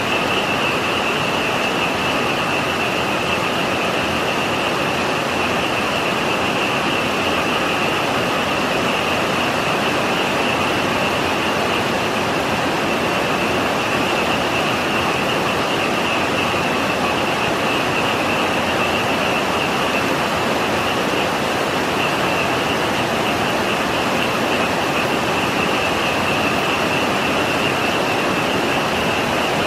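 Heavy typhoon rain pouring steadily, with a dense frog chorus calling over it as a continuous high-pitched din.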